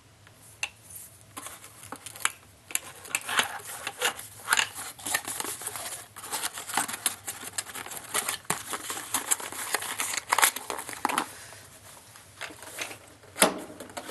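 Packaging around boxes of ammunition being handled: irregular crinkling and rustling with many sharp clicks and taps.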